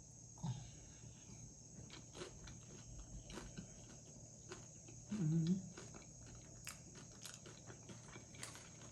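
Nacho tortilla chips being bitten and chewed close to the microphone, giving scattered crisp crunching clicks. A brief vocal sound from the eater about five seconds in.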